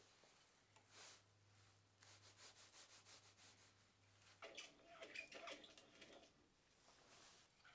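Faint handling sounds at a milling spindle: a run of light ticks, then a louder patch of metal rubbing and rattling about halfway through, as gloved hands fit a long bit into the spindle's collet and turn the collet nut. A faint low hum stops about halfway.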